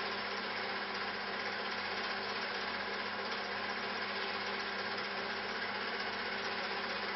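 Steady, unchanging mechanical hum with hiss, like a small motor running.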